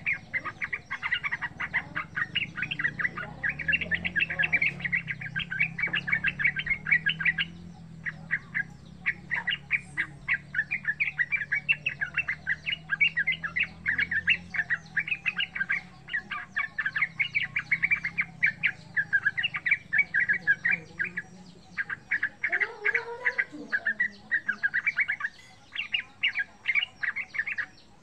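Yellow-vented bulbul (trucukan) singing fast chattering phrases, long runs of quick notes broken by a few short pauses.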